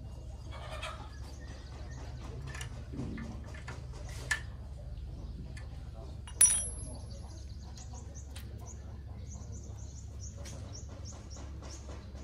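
Small metallic clicks and taps of hand tools and parts on a bicycle's crank and chain area, with one sharp metal clank about six seconds in that rings briefly. Birds chirp in the background over a steady low hum.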